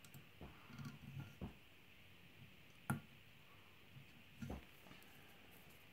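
Faint handling knocks and clicks as a part is set down and clamped on the aluminium bed of a desktop CNC mill, with one sharper click about three seconds in; the spindle is not running.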